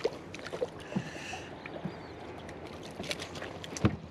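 Scattered clicks and knocks of a fish and tackle being handled in an aluminium tinnie, with a sharper knock near the end.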